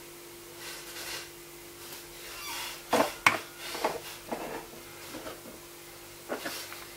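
Hard clear plastic storage containers being handled: two soft rubs, then a run of sharp clicks and knocks, loudest about three seconds in, and one more knock near the end, over a faint steady hum.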